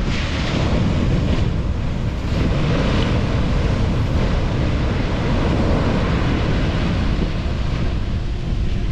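Heavy ocean surf breaking and washing up a sandy beach, with wind rumbling on the microphone.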